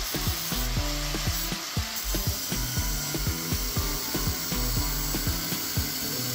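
Angle grinder with a thin cutting disc cutting through the edge of a sheet-steel repair panel, a steady hiss as it trims the panel to fit. Background music with a steady beat plays underneath.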